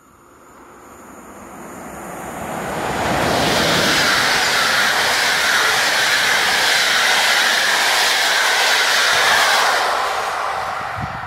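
EP07 electric locomotive and its train of passenger coaches passing through the station without stopping. The rail and wheel noise builds over about three seconds, stays loud and steady as the coaches go by, and fades near the end.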